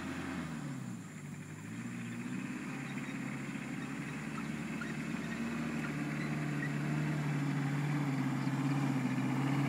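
An off-road 4x4's engine working across soft grassy ground. Its note drops in the first second and climbs again about two seconds in, then holds steady and grows gradually louder as the vehicle comes closer.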